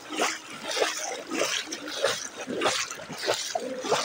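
Footsteps splashing through shallow floodwater, a steady walking rhythm of about one and a half splashes a second.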